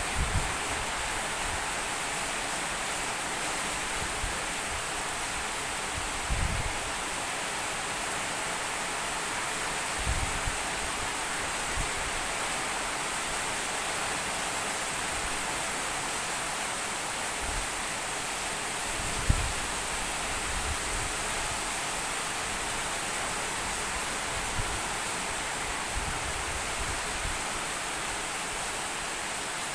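Heavy rain falling steadily, an even hiss without a break, with a few soft low thuds, the sharpest about two-thirds of the way through.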